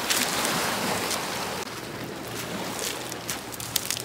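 Small waves washing onto a pebble beach, a steady rushing hiss that eases about a second and a half in, with a few sharp clicks of pebbles near the end.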